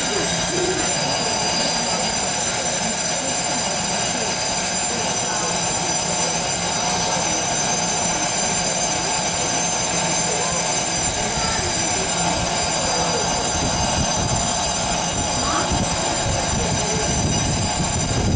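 Station platform departure bell: an electric bell ringing continuously and loudly, cutting off suddenly near the end. It signals that the stopped commuter train is about to close its doors and leave.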